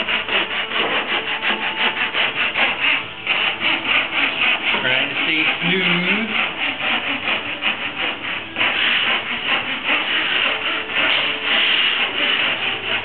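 The fine saw blade of a chevalet de marqueterie (marquetry sawing frame) cutting through wood veneer, in rapid, even back-and-forth strokes, with a brief pause about three seconds in.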